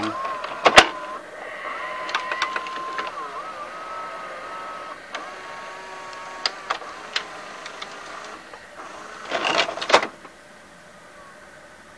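The White Westinghouse WVCP-8000 VHS player's deck mechanism running with the cover off: a small motor whines steadily, wavering slightly in pitch, as the plastic gears and cam turn and move the pinch-roller arm. A sharp click about a second in is the loudest sound, with light clicks as the mechanism shifts and a short clatter near the end.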